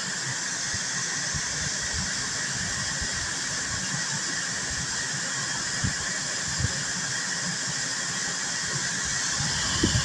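A 12-volt DC rooftop air conditioner running on full power: its blower and compressor make a steady airy hiss with a few steady tones in it. A couple of faint clicks come about six seconds in.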